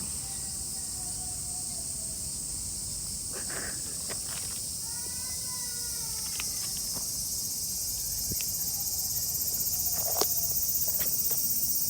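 A steady, high-pitched insect chorus buzzing continuously, with a few faint short calls over it. It cuts off suddenly at the end.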